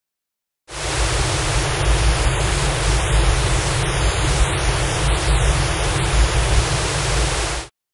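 Loud burst of harsh static noise with a deep rumble underneath, starting about a second in and cutting off suddenly near the end; letters are drawn into its upper range as a hidden spectrogram message.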